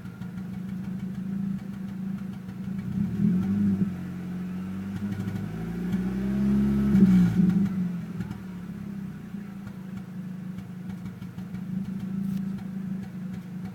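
Volkswagen AZH engine idling with a misfire, revved twice: a short blip about three seconds in and a bigger rise and fall in the middle, each time dropping back to idle.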